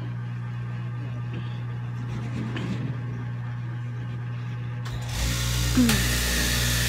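Straight-knife cloth cutting machine switched on about five seconds in, its motor and reciprocating blade then running with a steady high whine. Before it starts there is only a low steady hum.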